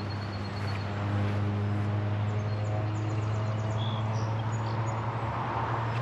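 A low, steady mechanical drone, with small birds chirping over it, including a quick trill about two and a half seconds in.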